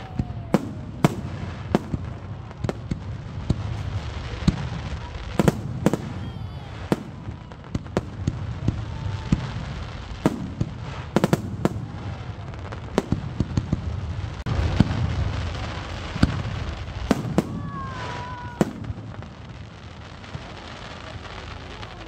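Fireworks display: aerial shells bursting in irregular sharp bangs over a continuous crackle, thinning out and quieter near the end.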